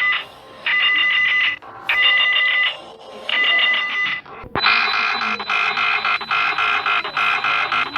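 Electronic emergency alert alarm tone: four beeps of about a second each with short gaps, then from about halfway a continuous, rapidly pulsing alarm tone.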